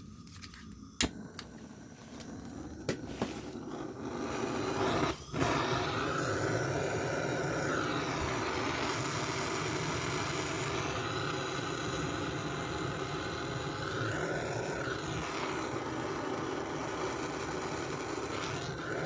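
A few sharp clicks, then the gas of a portable torch nozzle on a butane canister starts to hiss. About five seconds in it breaks off briefly, then burns with a steady rushing flame to the end.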